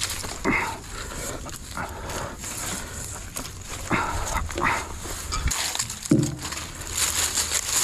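Four short calls from an animal, spaced irregularly over a few seconds, over steady outdoor background noise.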